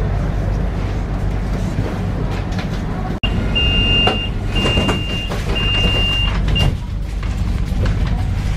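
A tram runs with a steady low rumble. A little over three seconds in, the sound drops out for an instant, then an electronic tone beeps three times, each beep long, followed by a short fourth beep.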